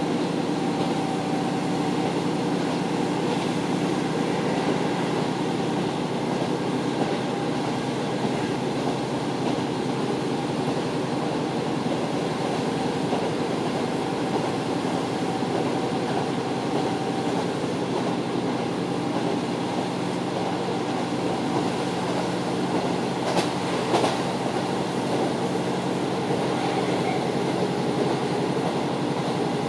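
Inside a JR Hokkaido KiHa 40 diesel railcar under way: a steady diesel drone and the running noise of wheels on rails. Two sharp clicks come about half a second apart, roughly three quarters of the way through.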